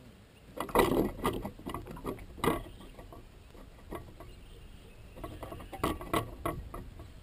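Irregular mechanical clicks and knocks from fishing gear and movement aboard a small aluminium boat, in two clusters: one about a second in, the loudest, and another about five seconds in.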